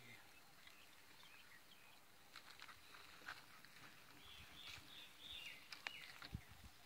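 Near silence: faint open-air ambience with a few faint bird chirps from about halfway in, and a few soft clicks.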